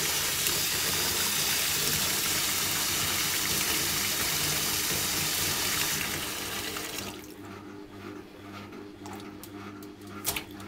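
Kitchen tap running steadily into a stainless steel sink. The flow stops about six or seven seconds in, leaving a much quieter stretch with a few small clicks.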